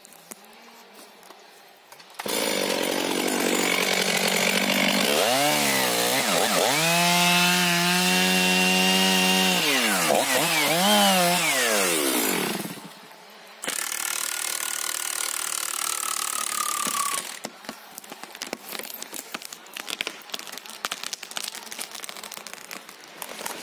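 STIHL MS 500i chainsaw starting about two seconds in and running at high revs as it cuts into the trunk, the revs dipping and recovering under load, then stopping. Then a cordless drill drives the TR30-AQ mechanical felling wedge, its whine slowly falling in pitch as the wedge takes the weight, followed by a run of sharp cracks.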